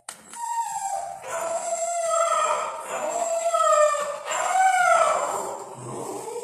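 A puppy howling and whining in long, wavering cries, one after another.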